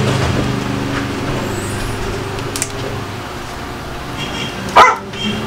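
A motor vehicle's engine hums steadily and fades away over the first second or two, then a dog barks once, sharply, near the end.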